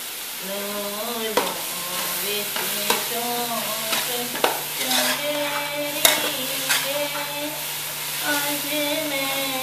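Shredded cabbage and capsicum sizzling in an aluminium pot on high heat while a steel spoon stirs and scrapes through them, with several sharp clinks of the spoon on the pot. Over it a woman sings a naat unaccompanied, in long held notes.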